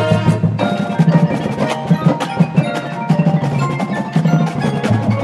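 Drum corps percussion feature: the battery's rapid drum strokes and repeated low drum notes over the front ensemble's mallet keyboards, starting the moment the brass chords stop.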